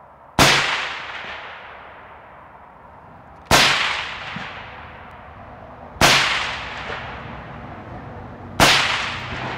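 Four rifle shots from a bench-rested AR-15, about two and a half to three seconds apart, each followed by a long echo fading away.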